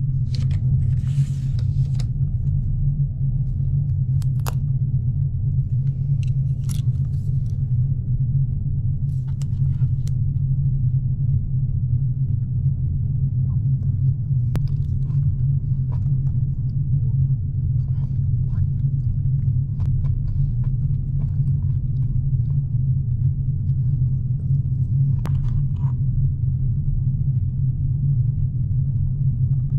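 Steady low rumble of the ferry's engines, heard inside a passenger cabin while the ship is under way. A few faint clicks and taps from chopsticks and a wooden bento box being handled sit on top of it.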